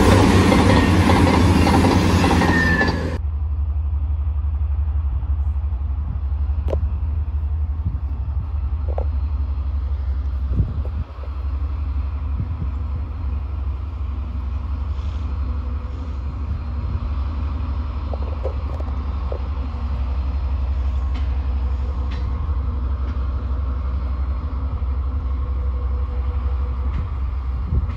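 A CrossCountry Voyager diesel train passes loudly; the sound is cut off abruptly about three seconds in. After that, a Colas Rail Freight diesel locomotive running light at low speed gives a steady low engine drone, with a few faint knocks and clanks.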